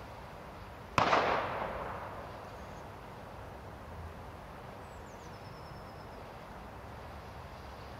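A single sharp firecracker bang about a second in, its echo dying away over a second and a half, over a steady hiss.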